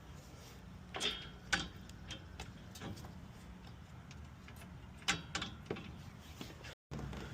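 Irregular light metal clicks and knocks from hand tools and parts while the new AC condenser on a semi truck is fitted and its mounting bolts started, over a faint low hum.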